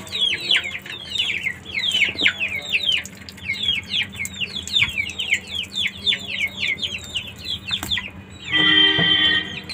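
A flock of young chickens (chicks) peeping without pause, a stream of short falling cheeps several times a second. Near the end a steady pitched tone lasts about a second.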